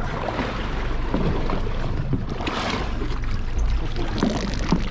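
Small boat at sea: a steady low rumble with water washing and sloshing, swelling briefly about halfway through, and a few light knocks.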